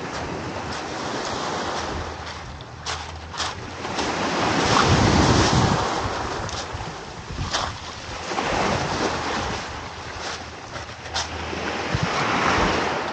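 Small waves breaking and washing up a pebble beach, swelling and fading every few seconds, with wind buffeting the microphone and a few sharp clicks.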